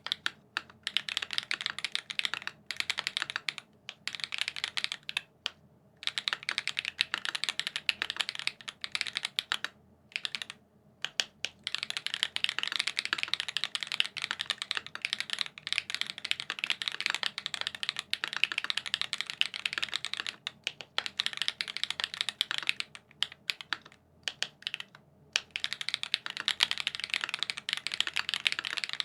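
Fast, steady typing on a mechanical keyboard with lubed SWK X OUTVA Black tactile switches on a PVC plate, a dense run of keystrokes broken by brief pauses every few seconds.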